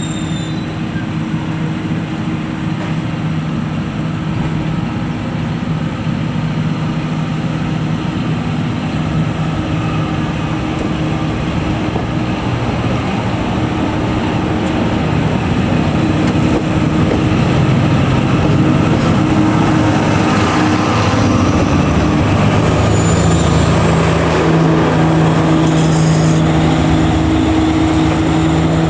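Train departing slowly: a DE10 diesel-hydraulic locomotive's engine runs with a steady low hum over the rumble of the carriages. The hum grows louder about halfway through as the locomotive at the rear of the train draws near.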